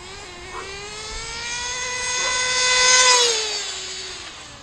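Kyosho FW-05 nitro RC car's small glow engine at high revs, a high buzzing whine that climbs in pitch and grows louder. About three seconds in it peaks, then it drops in pitch and fades as the car runs off down the street. The engine is tuned to run rich, with its low-speed needle still sluggish.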